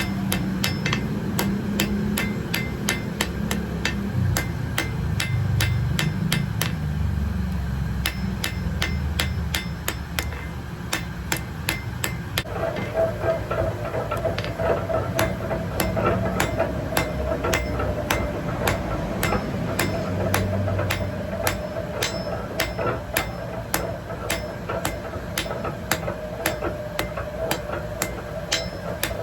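Blacksmith's hammer striking hot metal on an anvil in a steady forging rhythm, about two to three blows a second. A steady hum joins the low background rumble about halfway through.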